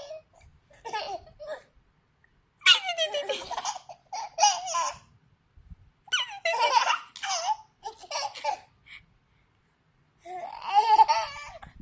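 Baby laughing in about five separate fits with short pauses between them.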